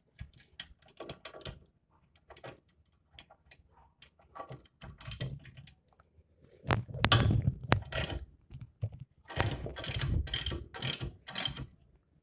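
Socket ratchet clicking in short back-and-forth strokes while it undoes the 17 mm nut on the bolt that clamps a front shock absorber to the steering knuckle. The strokes are sparse at first and come about two a second near the end.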